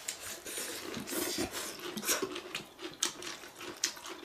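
People eating noodles with chopsticks from porcelain bowls: chewing and slurping, with frequent short, irregular clicks of chopsticks against the bowls.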